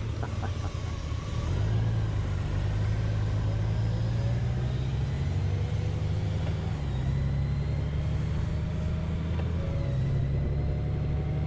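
Steady low rumble of a vehicle on the move, engine and road noise, with a faint, slowly rising whine above it.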